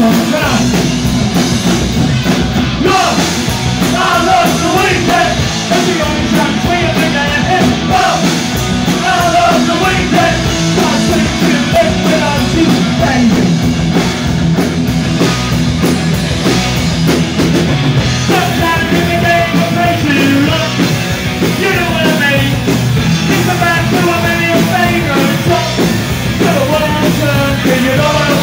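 Punk rock band playing live: distorted electric guitars, bass guitar and drums, with a male singer over them.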